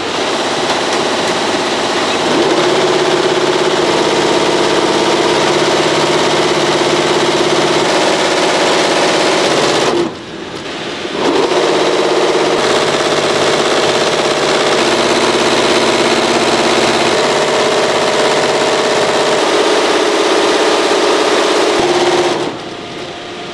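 SWF multi-head embroidery machine running, its needles stitching a design into terry towels with a steady mechanical chatter. The sound dips briefly about ten seconds in and drops away near the end.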